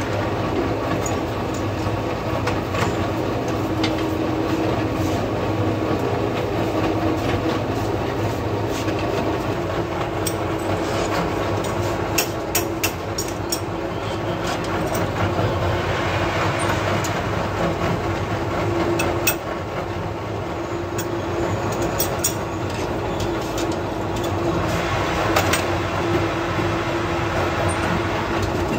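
Steady workshop machinery running with a constant hum, and scattered sharp metal clicks and clinks, a cluster about halfway through and a few more later, as a lathe chuck is tightened with its chuck key.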